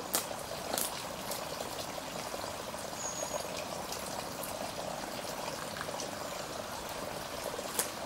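Thin stream of water trickling and splashing steadily from the spout of an old stone wall fountain, with a few light clicks near the start and end.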